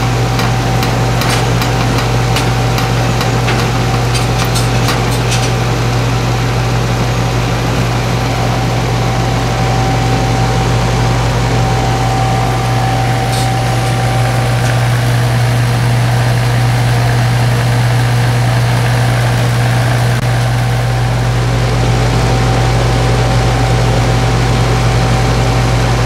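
Heat pump outdoor unit running while R-410A is charged into it: a steady, loud hum of the compressor and condenser fan with a thin steady tone above it. A run of faint clicks sounds in the first few seconds.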